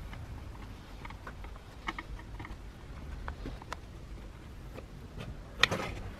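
Scattered light clicks and taps of a screwdriver turning screws into the plastic housing of a Makita 1901 electric planer, with one sharper knock about five and a half seconds in.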